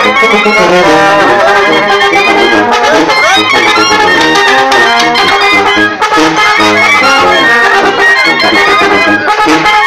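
Loud live banda music: brass and wind instruments play the melody over the tambora, a bass drum with a cymbal mounted on it, keeping a steady beat.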